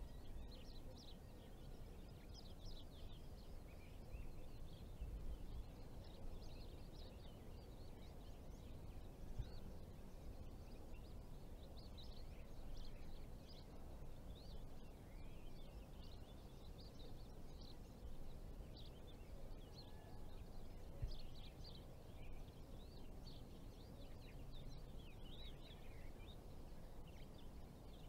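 Faint outdoor ambience: many small birds chirping throughout over a low, steady rumble of wind. There is one soft thump about three-quarters of the way through.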